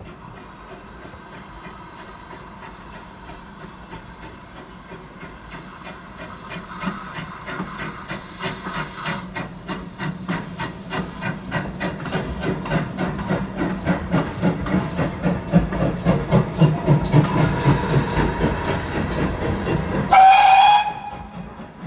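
Steam tank locomotive hauling a coach over a level crossing. Its exhaust beat grows louder and steadier as it approaches and passes, and there is one short blast on its whistle near the end.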